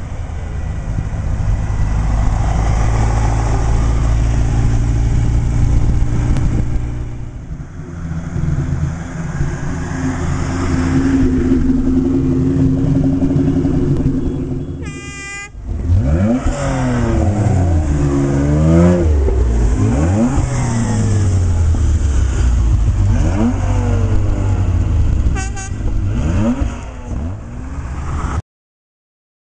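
Sports cars driving past one after another: a Ferrari 308's V8 pulling away, then a Ford Mustang's engine revved hard several times, its pitch rising and falling. A car horn sounds briefly about halfway and again shortly before the end, and the sound cuts off abruptly just before the end.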